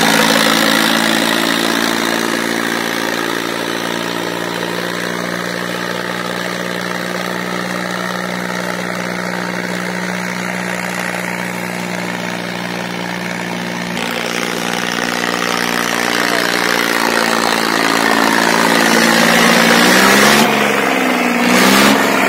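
Escort 340 tractor's diesel engine running steadily while working a harrow through the soil, puffing black smoke under load. It gets quieter in the middle and louder again near the end, where its pitch wavers up and down.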